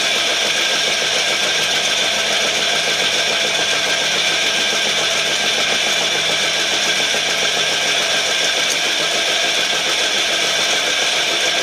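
Charcoal briquette extruder running steadily on its 5 hp electric motor while pushing a briquette out of the nozzle: an even, unbroken machine drone with a high-pitched whine.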